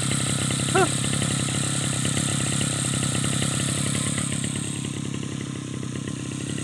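Mitsubishi TU43 brush cutter's small two-stroke engine idling steadily, freshly rebuilt with a new cylinder block and piston. Its note is rough and tapping, a quick 'tak tak tak'.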